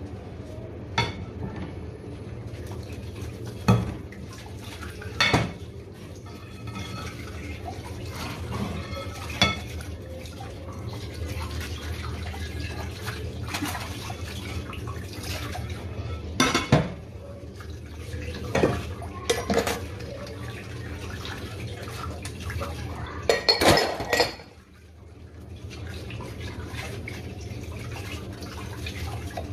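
Dishes being washed by hand at a kitchen sink: tap water running steadily while plates clink and clatter against each other and the sink now and then. A louder burst of clattering comes near the end, then the noise briefly drops away.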